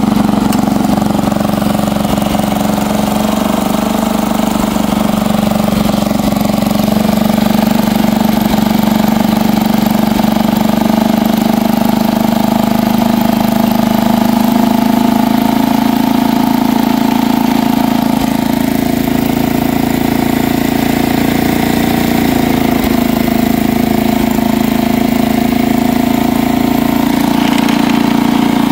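Bolens 1050 garden tractor's 10 hp engine running steadily at an even speed, its pitch shifting slightly around the middle.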